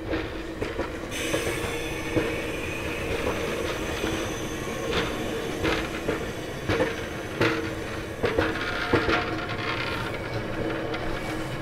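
Stainless-steel passenger cars of VIA Rail's Canadian rolling past as the train pulls out. The wheels click irregularly over the rail joints, and a thin, high wheel squeal comes in about a second in.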